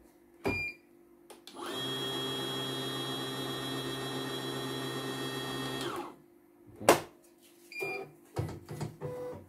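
CNY E900 computerised embroidery machine: a button beep, then its motor runs steadily for about four seconds with a low hum and a thin high whine, and stops. A sharp click follows, the loudest sound, then another short beep and a few lighter clicks.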